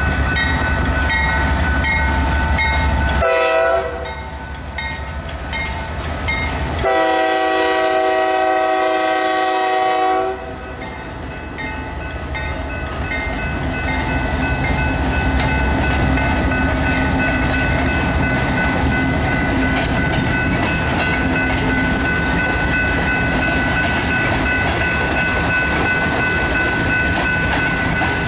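CSX freight locomotive's Nathan K5H five-chime air horn blowing a short blast, then a long one of about three and a half seconds, over the deep rumble of the diesel passing. Afterwards the tank cars roll by with wheels clicking over rail joints, under a steadily ringing grade-crossing bell.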